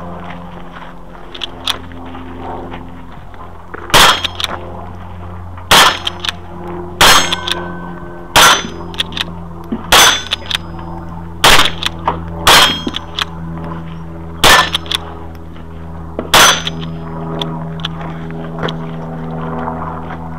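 Lever-action rifle fired nine times, a shot every second or two, with steel targets ringing after the hits.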